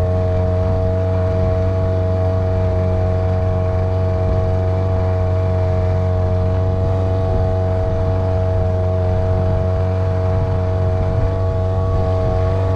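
A sailboat's outboard motor running at a steady speed, a loud, constant drone that holds one pitch throughout.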